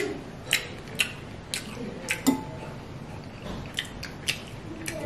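Close-miked eating sounds: short wet clicks and smacks of chewing, about one or two a second, with a single clink of metal utensils that rings briefly a little over two seconds in.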